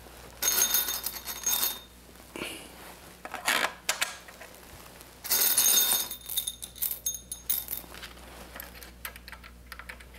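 Small metal screws and nuts clinking and jingling as a hand rummages through them in a small bowl. There are two bursts, about half a second in and again around five seconds in, with lighter clicks near the end.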